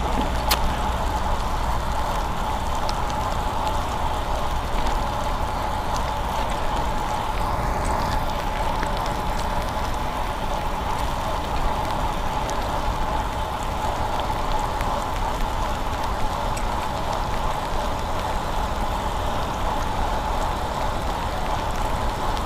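Road bike's tyres hissing over wet pavement while riding in the rain, a steady wash of spray and road noise with a thin steady tone under it.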